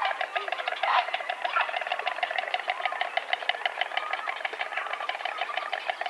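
A pair of white storks clattering their bills together: a fast, steady wooden rattle, with a louder burst about a second in. It is the storks' greeting display at the nest.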